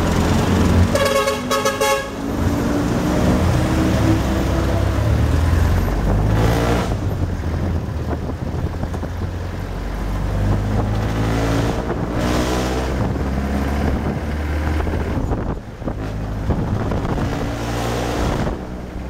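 A vehicle engine running and speeding up through town traffic, its pitch rising twice. A horn toots briefly about a second in.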